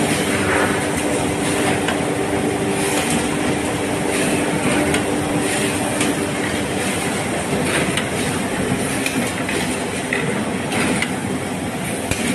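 HL QSZ380 automatic three-side book trimmer running: a steady mechanical hum with irregular clacks and knocks from its moving mechanism.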